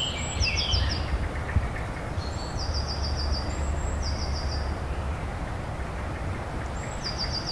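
Outdoor nature ambience: a steady noisy background, with small birds chirping in short, rapid high trills several times.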